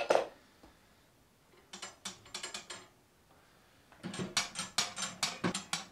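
Hunter Herald 8 wood stove's metal door clicking and rattling on its hinges as it is wiggled back and forth to work it off. There is a short run of clicks about two seconds in, and a longer, denser rattle near the end.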